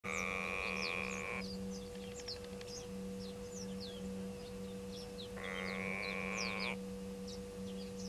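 Grey go-away bird giving its drawn-out nasal 'go-away' call twice, each call lasting just over a second, the second coming about four seconds after the first.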